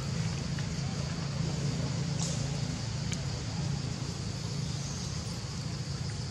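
Steady outdoor background: a continuous low hum with a high, even insect drone above it, and a couple of faint clicks about two and three seconds in.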